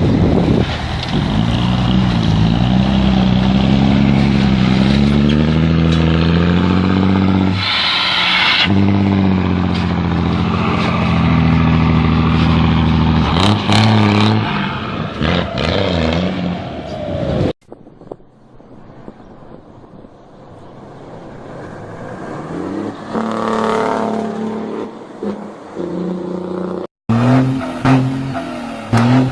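A vehicle engine revving hard and accelerating, its pitch climbing and dropping back several times as it goes through the gears. The sound cuts out abruptly about two-thirds of the way through, then builds again and cuts a second time near the end.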